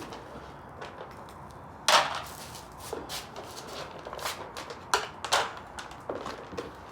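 A string of irregular sharp clicks and knocks, the loudest about two seconds in and a pair around five seconds in.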